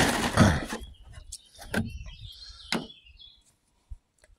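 Water sloshing in a plastic gallon milk jug as it is shaken to mix in copper sulfate, stopping under a second in. A few sharp knocks follow as the jug is handled and set down.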